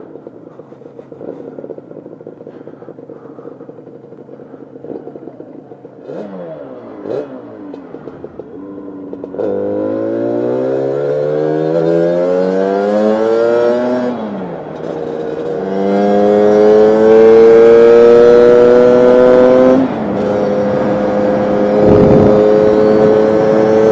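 Lambretta scooter's 275cc Targa Twin two-stroke engine, ticking along at low revs at first, then accelerating hard from about nine seconds in. The revs rise steadily, drop at an upshift, rise again, and drop at a second upshift near the end, after which the engine holds high revs.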